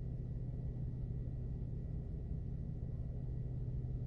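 Car engine idling, a steady low drone heard from inside the cabin.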